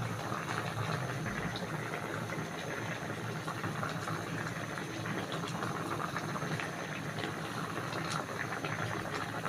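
Chicken with torch ginger flower bubbling in a pot: a steady boil with a dense patter of small pops and crackles.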